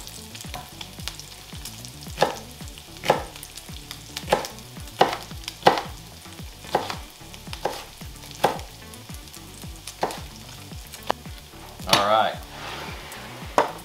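Chef's knife chopping jalapeños on a wooden cutting board, sharp knocks about once a second, over the steady sizzle of bacon frying in a cast-iron skillet.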